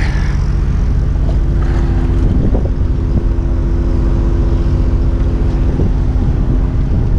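Vacuum truck's engine and vacuum pump running steadily, a low even drone with a hum, working the suction hose laid in the pad water.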